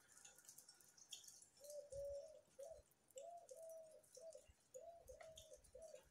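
Faint cooing of a dove: a run of short, soft, low coos in quick succession, starting about one and a half seconds in, with faint high ticks over it.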